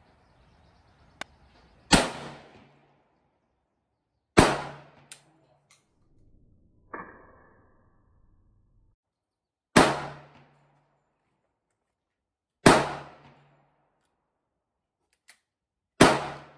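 Five shots from a Savage-Stevens 301 single-shot .410 bore break-action shotgun, each a sharp blast with a short ringing tail, spaced two to five seconds apart. About seven seconds in a shorter, ringing clack comes as the breech is broken open and the spring-loaded ejector throws out the spent hull, with a few light clicks of the action between shots.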